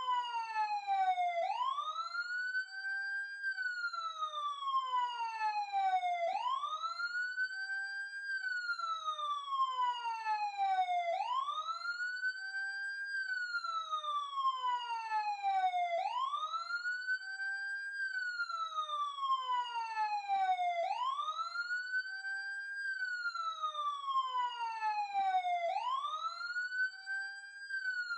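Emergency siren wailing. Each cycle rises quickly, holds briefly at the top, then falls slowly, repeating about every five seconds.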